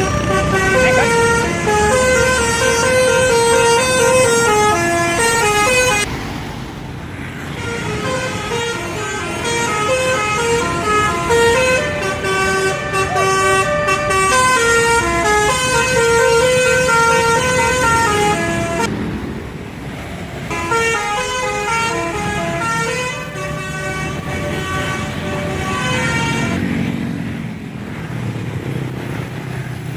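Bus telolet horn, a multi-tone musical horn, playing long melodic runs of notes stepping up and down. The runs come in three long stretches, with short breaks about six and nineteen seconds in, over the low sound of a running engine.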